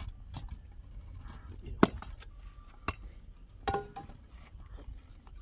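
A few sharp clinks and knocks, three distinct ones, the loudest about two seconds in, over a low rumble.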